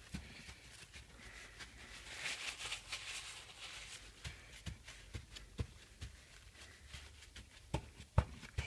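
Faint rustling of a paper towel dabbing water off a washed circuit board, with scattered light clicks and a couple of sharper knocks near the end as the board is handled.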